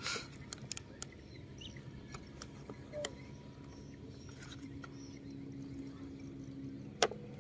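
A child digging in sand with a small plastic spoon and bare hands: scattered small taps and scuffs, with one sharper tap near the end, over a faint low steady hum.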